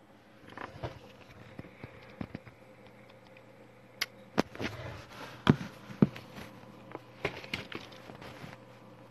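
Handling noise from a smartphone held in the hand: irregular knocks, taps and rubbing on its microphone, several sharp ones close together around the middle, over a faint steady hum.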